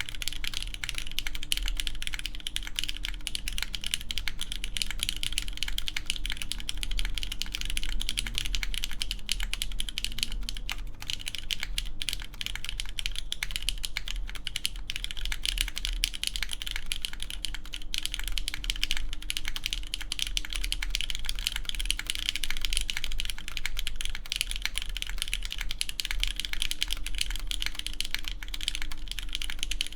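Continuous fast typing on a mechanical keyboard with lubed Cherry MX Red linear switches, an aluminium full plate and GMK keycaps: a dense, even stream of keystrokes with no pauses.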